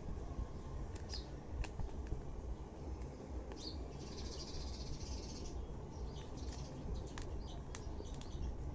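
Outdoor background: a steady low rumble with scattered short bird chirps, and a brief buzzy trill about four seconds in.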